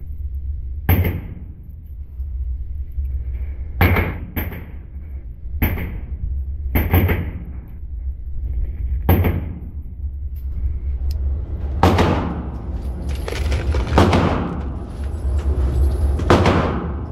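Gunshots: about a dozen sharp reports at irregular intervals, each with a short echoing tail. They crowd together and overlap near the end, over a steady low rumble.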